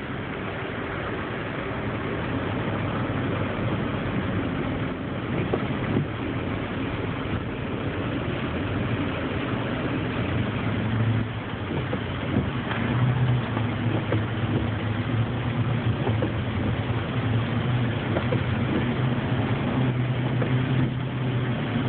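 Inside a car's cabin while driving on a rain-soaked road: steady tyre hiss from the wet pavement under a low engine hum, the hum growing stronger about halfway through.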